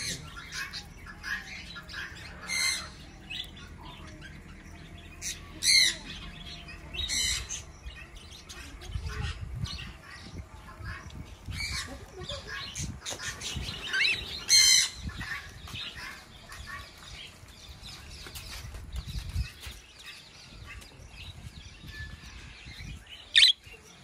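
Budgerigars chirping and chattering, with about five loud, sharp squawks standing out over the softer background calls.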